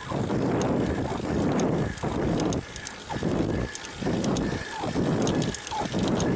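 Riding sounds from a bicycle climbing a mountain pass: a rough rushing noise that swells and drops about once a second, with faint light ticks over it.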